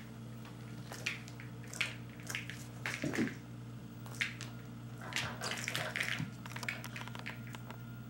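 A cat playing with a bungee bird toy on a hard floor: a series of short scratchy rustles and taps, bunched together about three seconds in and again in the second half, over a steady low hum.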